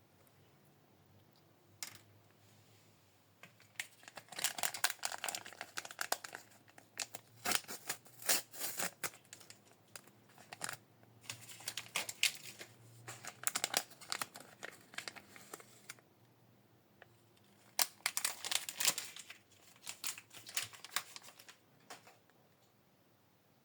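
Small packaging wrappers being crinkled and torn open by hand, in bursts of crackling with a short pause between them.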